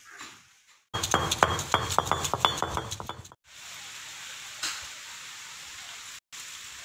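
Stone roller of a granite ammi grinding stone rolled and knocked against the slab as it crushes ginger and garlic to paste: a rapid clatter of stone-on-stone clicks for about two seconds. After a break there is only a steady faint hiss with one small click.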